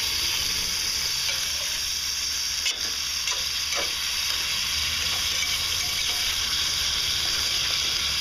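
Clams, oysters and onion sizzling in a stainless steel frying pan on a camping gas stove: a steady hiss, with one brief click a little under three seconds in.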